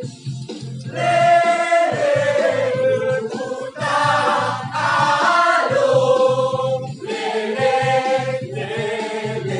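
Music: a choir singing in phrases of one to two seconds, with short breaks between them, over a steady low accompaniment.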